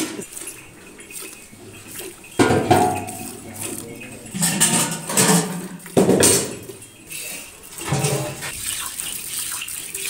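Cow being milked by hand: milk squirting in repeated streams into a steel pail, with a few louder sudden bumps and clatters, the loudest about two and a half and six seconds in.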